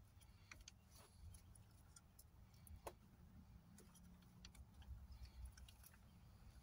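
Near silence with scattered faint clicks and ticks from probe leads and wires being handled at the fan connector. The radiator cooling fan stays silent even with the PWM signal applied: it does not run because of a bad relay connector.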